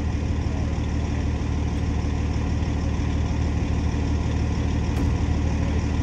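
Heavy wrecker truck's diesel engine running steadily at a low, even speed.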